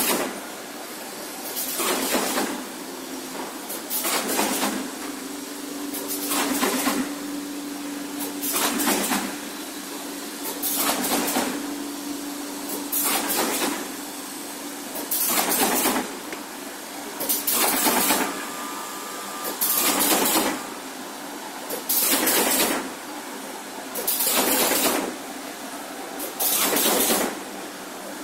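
Automatic carton partition assembly machine running, cycling with a loud hissing rush about every two seconds over a steady hum.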